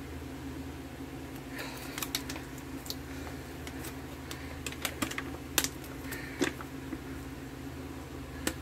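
Crinkling of a foil-and-plastic ration food pouch being handled and opened: scattered, irregular sharp crackles that start about a second and a half in and grow more frequent toward the end.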